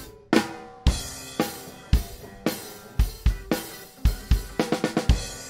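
Live-recorded drum kit playing back in a mix: kick and snare alternating, each about once a second, over cymbal wash, with a quick run of drum strokes near the end. It is heard with the drum bus compressor bypassed.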